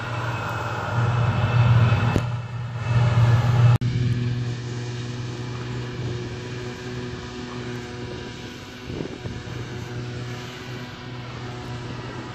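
Claas Jaguar forage harvester chopping grass, with a Claas Axion tractor and silage trailer running alongside: a steady heavy diesel drone. It breaks off abruptly about four seconds in and continues a little quieter.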